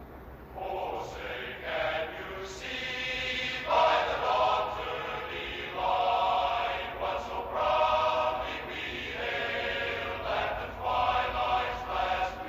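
Voices singing slowly in held, drawn-out notes, like a choir, starting about half a second in. This is the national anthem played at a station's sign-off.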